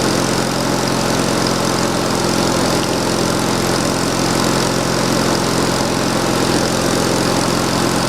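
Engine running steadily at an even, unchanging speed: a constant drone with a noisy wash over it.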